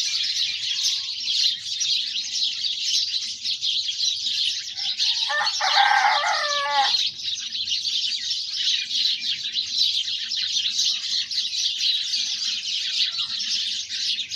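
Dense, continuous high-pitched chattering and chirping of a large flock of small birds gathered in one tree at dawn. About five seconds in, a rooster crows once for about a second and a half.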